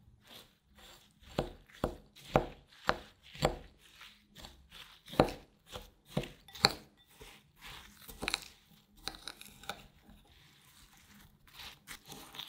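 Metal spoon stirring and pressing baked cocoa crumbs into melted milk chocolate in a glass bowl: irregular crunchy scrapes and taps against the glass, about two a second, louder in the first half and softer near the end.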